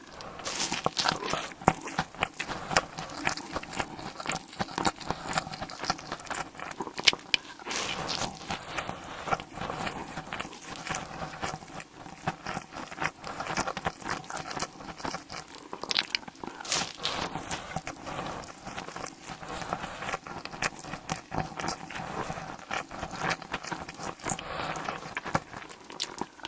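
Close-miked eating: a person biting and chewing food, a dense, irregular run of small crunchy clicks and wet smacks.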